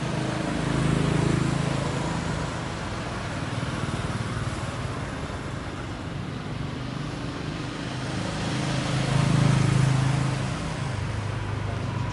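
Road traffic noise: a steady background hum that swells twice as vehicles pass, about a second in and again around nine seconds.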